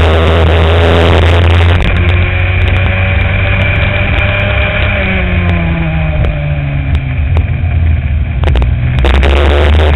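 Racing kart engine heard from a camera mounted on the kart: a loud low rumble with buffeting at first, then from about two seconds in the engine note comes through clearer, its pitch rising and then falling, before the loud rumble returns near the end.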